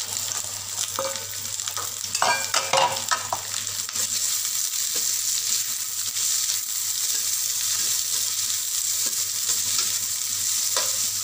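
Sliced onions frying in hot oil in a wok, sizzling with a steady high hiss as they are stirred, with scattered short scrapes and clicks of the stirring.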